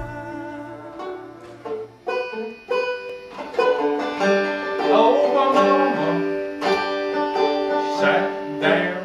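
Banjo being picked: a few separate plucked notes at first, then a quicker, busier run of picking from about three and a half seconds in.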